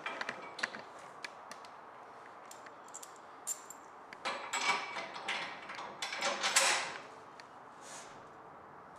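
Small metal clicks and scraping from a nut, bolt and washer being handled and threaded by hand onto a steel footrest bracket, with two louder bursts of scraping about four and six seconds in.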